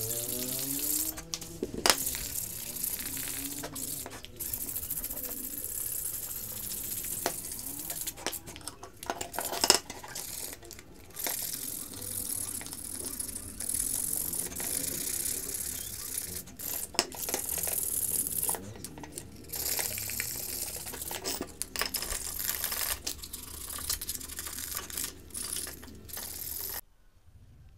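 Sandpaper rubbed by hand along a steel motorcycle exhaust header pipe, in uneven scraping strokes, stripping the old paint before a repaint. The rubbing stops suddenly near the end.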